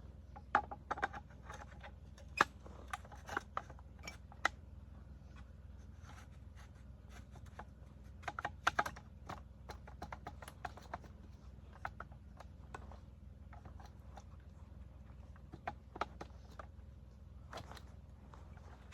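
Irregular metallic clicks and clacks of PKM machine gun parts being handled and fitted by hand, in small clusters with pauses between.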